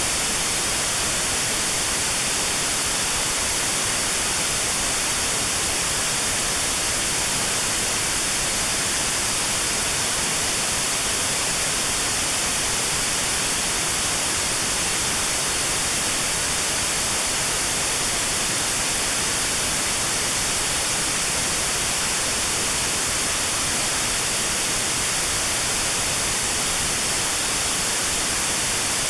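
Steady synthetic white noise with a narrow band around 4 kHz filtered out (notched white noise), a constant hiss for tinnitus sound therapy.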